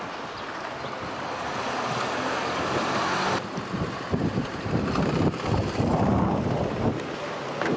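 Wind buffeting a camcorder microphone over the noise of a car driving on the street. About three and a half seconds in, the sound changes abruptly to an uneven, gusty low rumble.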